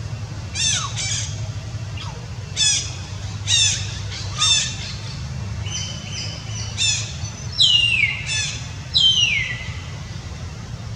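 A series of about ten high, squeaky animal calls, each falling in pitch; the last few near the end sweep down longer and louder. A steady low rumble runs underneath.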